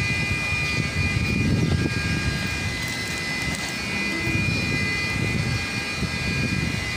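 Steady machine drone with a thin high whine, under an uneven low rumble on the microphone.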